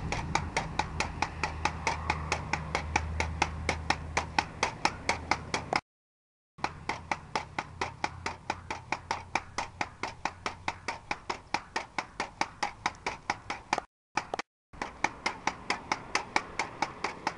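Pogo stick bouncing steadily, a sharp knock about three times a second. The sound drops out briefly twice.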